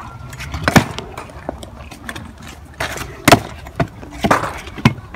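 Freestyle scooters on a concrete skatepark: several sharp clacks and knocks of decks and wheels hitting concrete, the loudest about three seconds in, over a low rumble.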